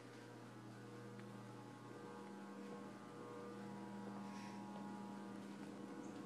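Steady electrical hum, faint and even, with a couple of soft scuffs partway through.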